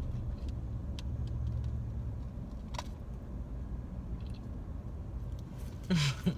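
Steady low rumble of a car on the road, heard from inside the cabin, with a couple of faint clicks. A voice starts near the end.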